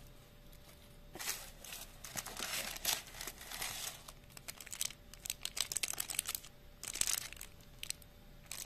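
Crinkling and rustling of shredded paper filler and sweet wrappers as hands rummage through a gift box and handle a plastic-wrapped chocolate bar. The sound comes in irregular bursts with quick crackles, starting about a second in.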